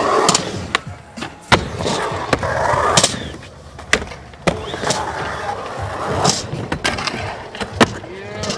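Skateboards rolling on concrete, with repeated sharp clacks of boards popping and landing and scraping as a skater grinds along a metal-edged ledge.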